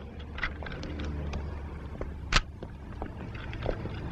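A camera shutter clicks sharply once about two and a half seconds in, with a few lighter clicks before it, over a steady low rumble.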